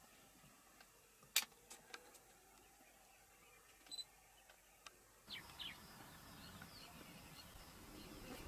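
Near silence: faint outdoor background broken by a few sharp clicks, the loudest about a second and a half in. About five seconds in the background noise steps up, with a couple of short high chirps.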